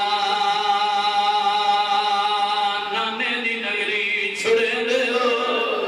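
A man's voice chanting a mournful lament into a microphone. He holds one long note for about three seconds, then the melody moves higher and wavers.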